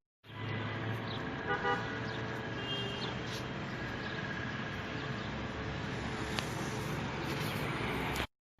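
Road traffic noise, with a car horn sounding briefly about one and a half seconds in.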